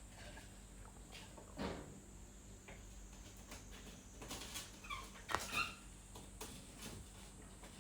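A kitten moving about, making light knocks and taps, with a couple of short high-pitched squeaks about five seconds in.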